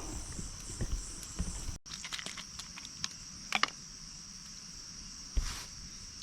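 Insects, crickets by their sound, chirping in a steady high-pitched chorus, with low thumps in the first two seconds and a few sharp rustles or clicks later on; the sound cuts out for an instant about two seconds in.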